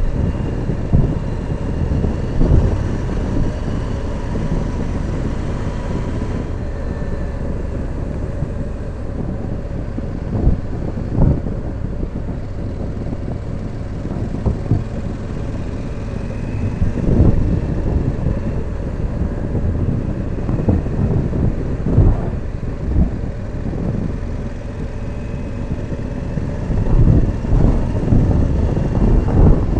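Motorcycle riding at road speed: the engine runs under a steady rush of wind on the microphone. Louder wind buffets hit the microphone now and then, thickest near the end.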